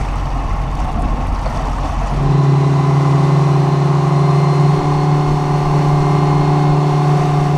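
Small motorboat's engine running at speed, with wind and the rush of its wake. About two seconds in, the engine's drone comes up loud and holds at one steady pitch.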